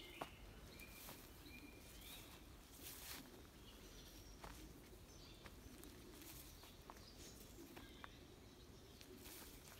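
Near silence: faint outdoor ambience with a few brief, faint bird chirps and light rustling.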